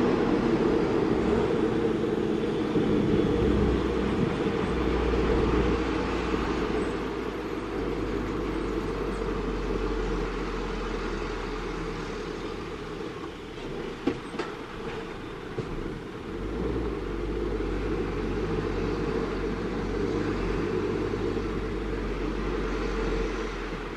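Heavy diesel truck driving: a steady engine drone with road and chassis rumble, and one brief knock about fourteen seconds in.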